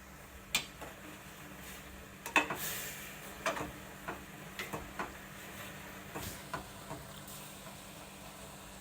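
A string of light clicks and knocks from things being handled and set down, spaced irregularly about a second apart, over a faint steady hum.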